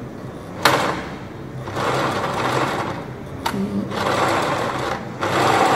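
Willpex WP653 household sewing machine stitching in reverse while its backtack button is held, locking the start of the seam. It runs in short spurts starting about a second and a half in, with a sharp click before the first spurt and another between spurts.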